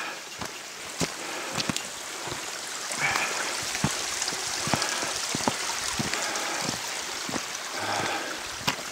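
Footsteps crunching on loose stones of a forest trail, many short sharp steps, over the steady rush of a small mountain stream.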